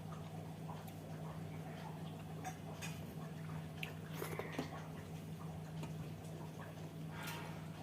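A person eating a meal of rice, dal and kheer: soft chewing and mouth sounds with scattered small clicks, a few louder ones about four seconds in, over a steady low hum.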